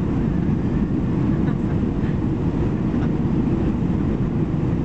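Steady cabin noise of an Airbus A320-214 on descent, heard from a window seat near the wing: a dull engine and airflow rumble with a faint steady hum.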